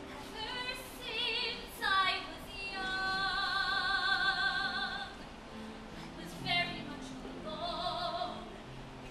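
A woman singing a solo in an operatic style with vibrato, holding one long note for about two seconds, over a soft instrumental accompaniment.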